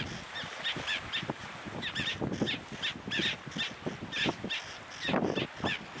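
A flock of seabirds calling: short repeated calls, several a second, overlapping one another throughout. A low rushing noise swells near the end.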